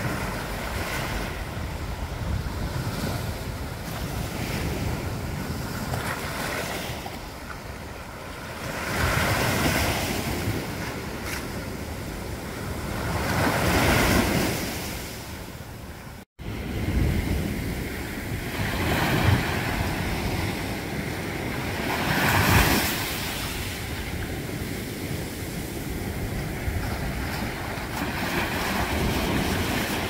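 Sea waves washing against rocks and the shore, swelling louder in several surges, with wind rumbling on the microphone. The sound drops out for a split second about halfway through.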